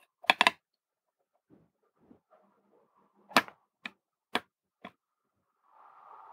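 Small sharp clicks and taps from handling a soldering iron, solder wire and a circuit board while soldering header pins. There is a pair of clicks at the start, then four more about half a second apart, and a faint hiss near the end.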